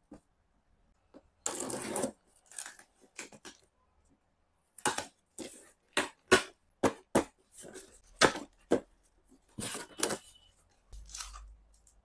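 Cardboard fan carton being opened: packing tape slit with a screwdriver and torn, with a string of short rips, scrapes and cardboard knocks.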